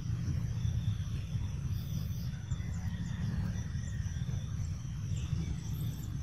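Outdoor ambience: wind rumbling unevenly on the microphone, with faint high chirps scattered through it and a thin faint tone near the middle.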